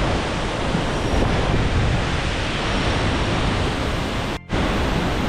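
Waterfall rushing: a loud, steady wash of falling water, broken by a split-second gap about four seconds in.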